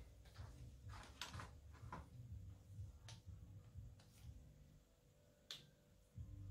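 Faint scrapes and a few sharp clicks of a hand deburring tool on the edges of a small machined crank web, over a low steady hum.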